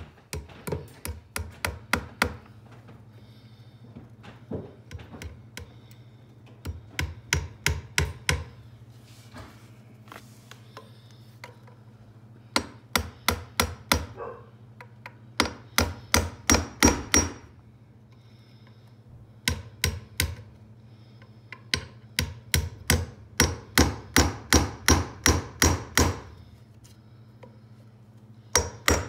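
Hammer tapping nails into the wooden base of a countertop support post, in runs of quick strikes at about five a second with short pauses between.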